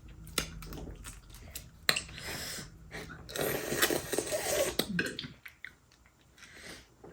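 Eating sounds from a seafood boil: sharp clicks and cracks of shells being broken open, and chewing, with a longer noisy stretch in the middle.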